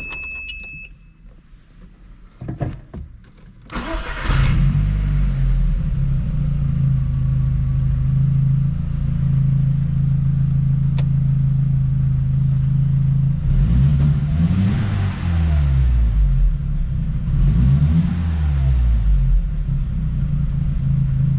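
Audi 1.8T turbocharged four-cylinder engine starting after a brief crank, catching about four seconds in and then idling steadily. It is revved up and let fall back twice in the later part. A slight misfire is still there, as the owner hears it, after cleaning the throttle body.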